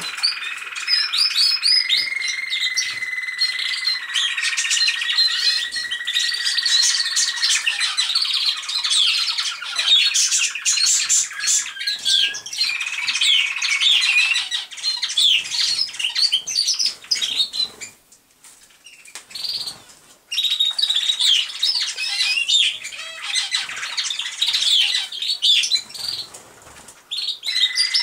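American Singer canary singing roller-canary style. Near the start it holds one long, even roll for several seconds. A stretch of quick, varied chirping notes follows, broken by a short pause about two-thirds of the way through.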